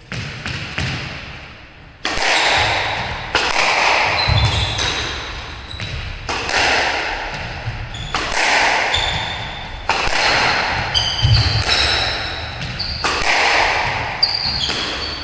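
Squash ball struck by racquets and slapping off the court walls in a fast rally, each hit booming and echoing in the enclosed court, about one hit every second. Short high squeaks of sneakers on the wooden floor come between the hits.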